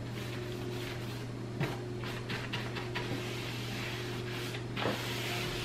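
A chalk-paint brush working paint onto bare wood, a few faint short scrapes and taps, over a steady low electrical hum.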